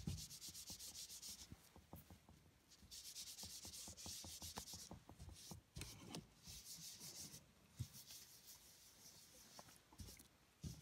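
Cloth rubbing oil into thin card shadow puppets lying on a plastic bag, oiling them so the light shows through: faint, quick scrubbing strokes in three spells of a second or two, with a couple of light knocks near the end.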